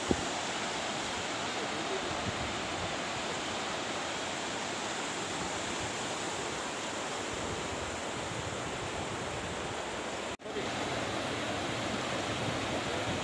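Steady rushing of a muddy river in monsoon flood, with a brief dropout about ten seconds in.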